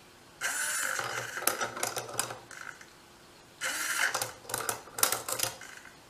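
Hobby servo whirring briefly as it swings the ladder of a tumbling-block ladder toy, followed by a run of quick clacks as the block tumbles down the rungs. The cycle happens twice, about three seconds apart.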